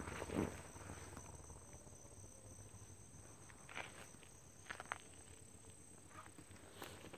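Faint, steady high-pitched trilling of insects, with a few irregular footsteps scuffing on a dirt road.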